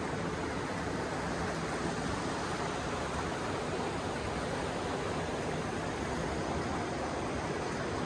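Steady rush of a rocky mountain stream, water running over and between stones.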